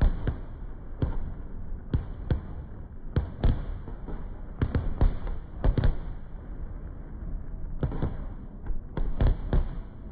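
Fireworks shells bursting overhead: an irregular run of sharp bangs, often several in quick succession, over a continuous low rumble.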